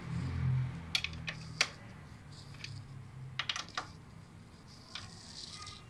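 Sharp, irregular metallic clicks and clinks from a hand tool working the cylinder head bolts of a Toyota 2E engine as the new head is bolted down. The clicks come singly about a second in, then in a quick cluster a little after the middle.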